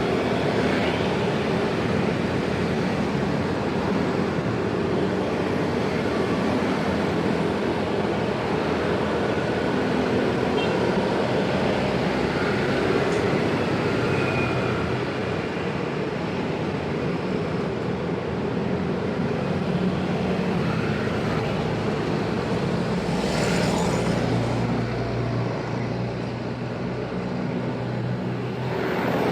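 Busy road traffic at a railway level crossing: a steady, dense mix of vehicle engines and exhausts running close by.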